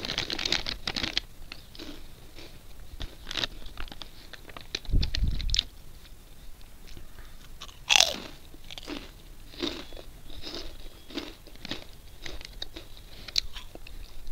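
Crunching and chewing of ring-shaped fried snack chips close to the microphone: a quick run of crisp crunches at the start, then single crunches spread through, with a dull low thump about five seconds in.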